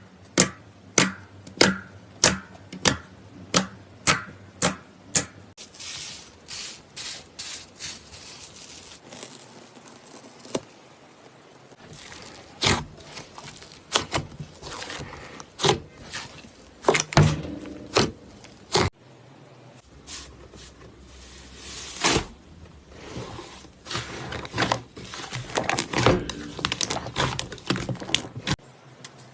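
Slime being played with by hand: a run of sharp, evenly spaced pops, a bit under two a second, for the first five seconds or so, then irregular pops and crackly squishing.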